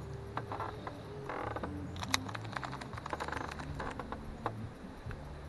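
Irregular light clicking and rattling of a fishing reel and rod being worked as line is retrieved, over a low steady hum.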